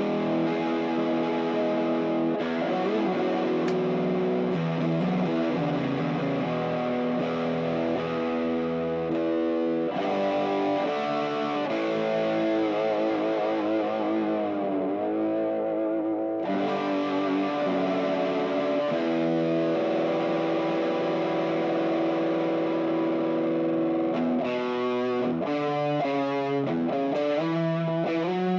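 Tokai Silver Star TSS-38 electric guitar played through distortion: held notes and chords, with wavering vibrato notes a little past the middle and a run of quick notes near the end.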